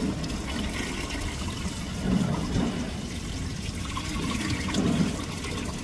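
Water rushing and sloshing along a fishing boat's hull over a steady low rumble, swelling briefly twice.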